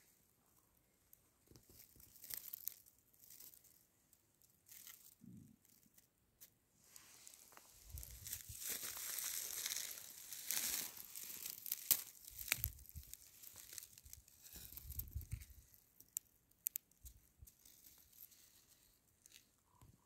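Faint rustling and crackling of dry grass, with phone handling noise and a few low thumps. It is louder for a few seconds in the middle.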